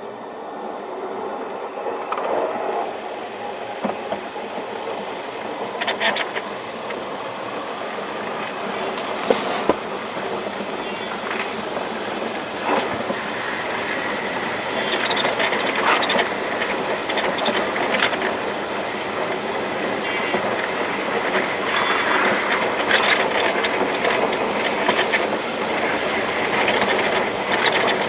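V/Line passenger train running on the line, its rumble growing steadily louder, with scattered sharp clicks and knocks from the wheels on the track.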